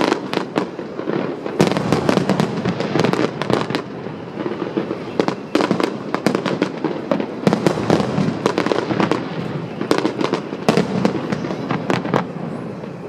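Aerial fireworks going off in quick succession: a dense barrage of bangs and crackling, with several bursts in some seconds, easing slightly near the end.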